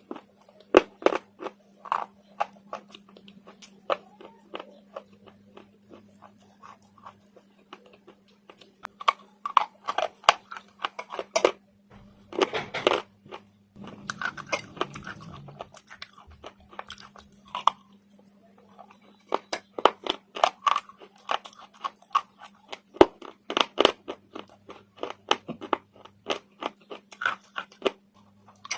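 Slate being bitten and chewed: repeated sharp crunches and crackles in clusters, with a faint steady hum underneath.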